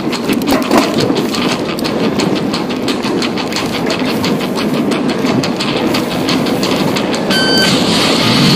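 Intense Primer full-suspension mountain bike rattling down a rocky dirt singletrack at race speed: a dense, rapid clatter of chain slap, frame and component rattle and tyres over stones and dirt, with a short high squeal near the end.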